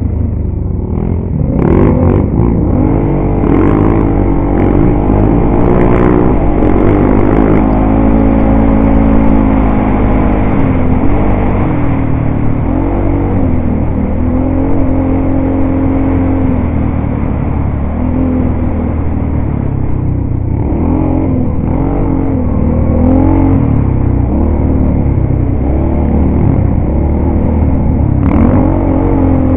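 ATV engine running under load on a rough gravel trail, its revs rising and falling over and over with the throttle, with wind rumble and a few knocks from the bumps.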